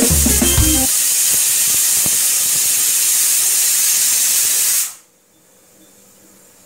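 Pressure cooker whistling: a loud, steady hiss of steam jetting out past the whistle weight on the lid as the cooker lets off built-up pressure, cutting off suddenly about five seconds in as the weight reseats.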